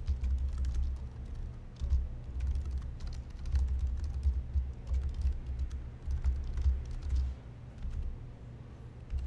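Typing on a computer keyboard: quick runs of keystroke clicks with short pauses between them, growing sparse near the end.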